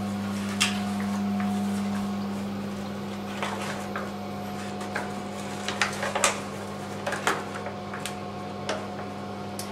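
Hands working a Hippo water-displacement bag inside a toilet cistern as it is filled: scattered light knocks and clicks, more of them in the second half, over a steady low hum.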